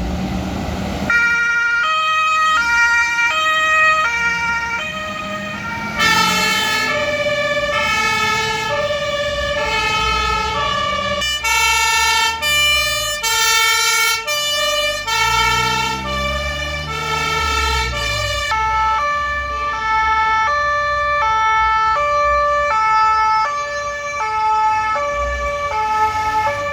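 Two-tone sirens (Martinshorn) of fire engines on an emergency run, each stepping between a high and a low note about every half second. More than one vehicle's siren overlaps, with a louder one joining about six seconds in, and the vehicles' low rumble runs underneath.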